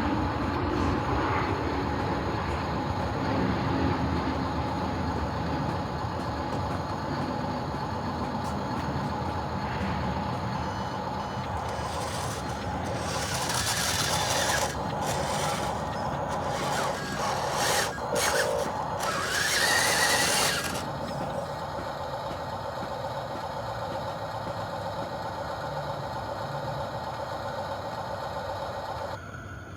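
Small electric motors and gearboxes of a radio-controlled model construction machine running with a steady whine. Louder grinding hiss comes between about 12 and 21 seconds in, and the whine stops shortly before the end.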